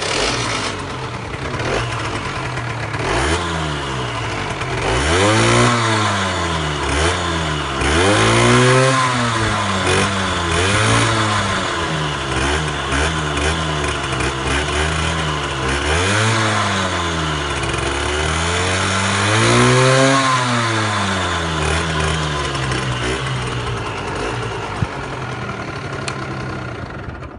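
Aprilia RS4 motorcycle engine, running stock, idling for the first few seconds and then revved again and again, the pitch rising and falling with each blip of the throttle.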